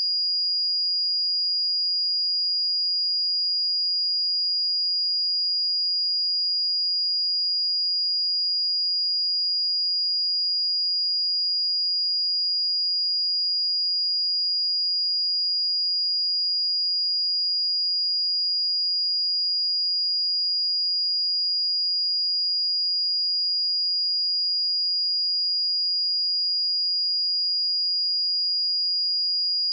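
A pure 4861 Hz sine test tone, a single high-pitched steady whistle held at an even level.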